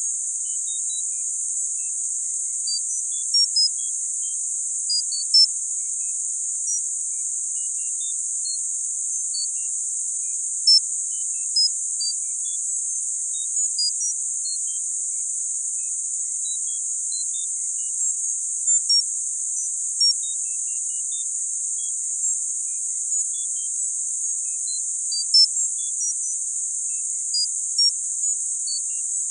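Tinnitus masking sound: a steady high-pitched hiss confined to a narrow band of high pitches, with short high tone pings scattered at random over it, a few every second or two.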